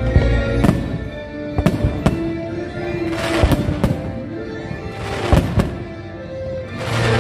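Aerial firework shells bursting with sharp bangs about once a second, over the fireworks show's music soundtrack.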